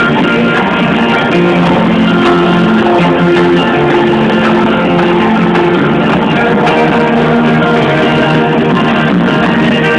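Live band music led by guitars, loud and steady and sounding muffled, with no singing heard.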